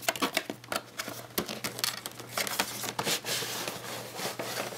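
Cardboard packaging and a clear plastic inner box being handled: irregular rustling, scraping and small clicks as the box flaps are flipped open and the plastic box is slid out.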